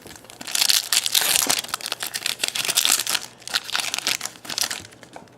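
Foil wrapper of a 2012 Topps Chrome football card pack being torn open and crumpled by hand. It makes a dense crinkling crackle that lasts about four seconds and then dies down near the end.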